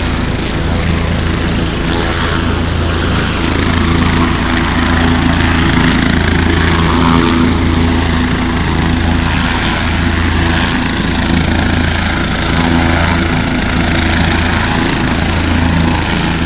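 Bell 407 helicopter running on the ground, its turbine and rotor giving a loud, steady drone with a low rotor throb.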